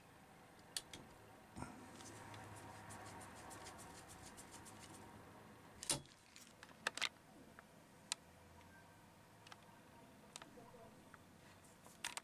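Faint clicks and ticks of a laptop cooler's fan and copper heatsink being handled on a wooden surface: a quick run of small ticks about two to five seconds in, then a few sharper knocks around the middle.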